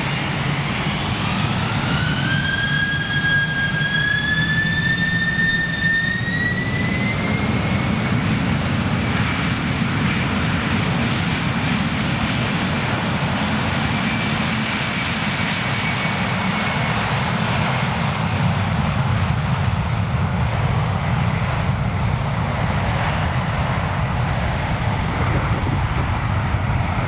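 Boeing 747-400 freighter's four jet engines spooling up for takeoff: a whine that climbs in pitch over the first several seconds, then a steady, loud jet roar as the aircraft accelerates down the runway.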